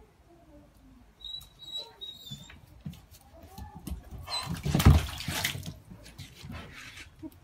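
A caracal pawing and dipping into a plastic kiddie pool after fish, water splashing in scattered slaps, with one big splash about five seconds in.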